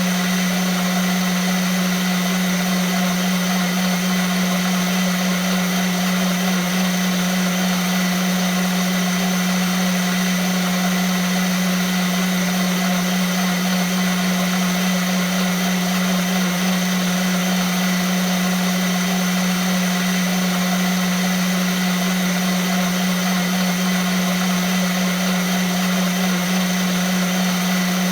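Vitamix blender motor running steadily at constant speed: a strong low hum under a dense, even whirring rush, without change.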